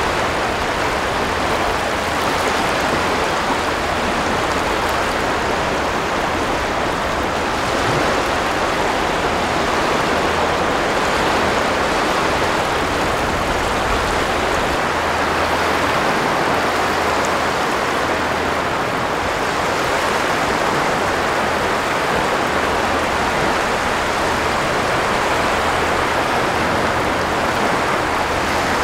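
Sea surf washing in over a shallow sandbar onto a sand beach: a continuous, dense rush of breaking water that swells slightly now and then.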